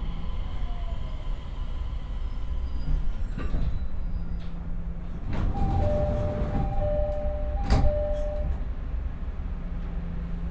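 JR East E501-series EMU at a standstill in a station, its equipment holding a steady low hum. The sliding doors open with a couple of thuds, and a two-note door chime sounds three times.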